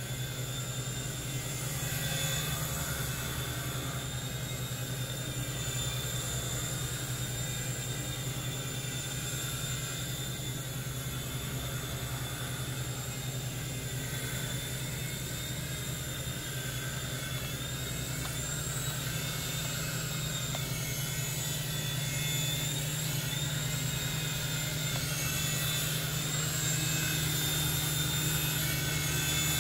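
Syma S39H XL toy RC helicopter in flight: a steady rotor hum under a high electric-motor whine that wavers in pitch as it manoeuvres. It grows a little louder near the end.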